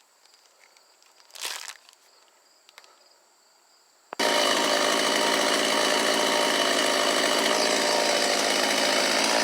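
O-JENAS MS381 Stihl-clone two-stroke chainsaw running steadily on its first run. It comes in abruptly about four seconds in, after a few seconds of near quiet with a brief rustle.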